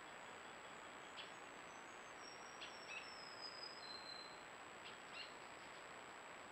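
Faint calls of forest birds: short sharp chirps about once a second, and a thin, very high whistle that steps down in pitch over a few seconds, over a steady hiss and a constant high-pitched tone.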